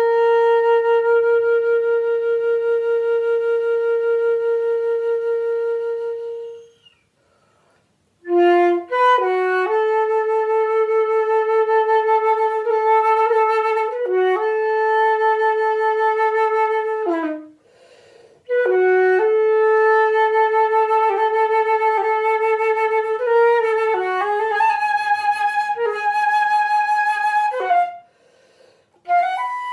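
Solo flute playing. A long held note dies away, followed by about a second of silence, then two phrases of shorter notes that step and leap in pitch, each ending in a short pause, with a new phrase starting just before the end.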